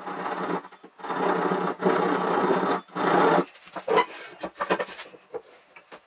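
Hand sawing with a backsaw through a board held upright in a vise, played at four times speed so the strokes come very fast. The sawing stops a little past halfway, leaving a few light clicks and knocks.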